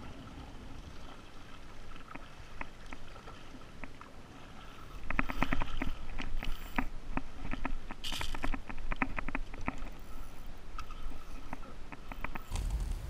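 Water sloshing and slapping against a plastic sit-on-top fishing kayak on a swelly sea. It gets louder about five seconds in, with a run of quick sharp clicks and a brief splash near the middle.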